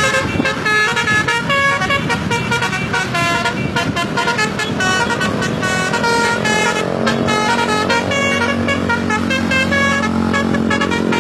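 Indonesian bus 'telolet' musical air horn playing a quick tune of short tones that step between pitches, over the bus engine running.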